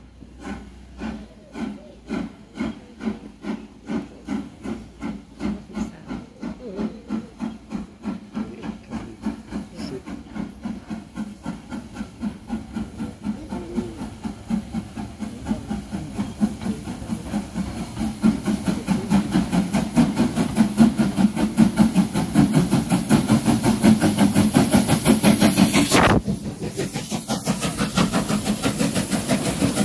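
Steam locomotive, most likely the Southern S15 4-6-0 No. 506, working towards and under the listener: a run of exhaust chuffs that quicken from about one and a half to about three a second and grow louder as it nears. Near the end a loud hiss of steam washes over, then the level drops suddenly and the chuffs carry on more quietly.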